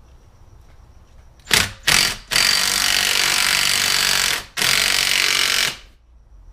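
Impact wrench running down the temporary nut on the flywheel of a Yamaha Raptor 700 engine. It comes in two short blips, then a run of about two seconds and, after a brief pause, one of about a second.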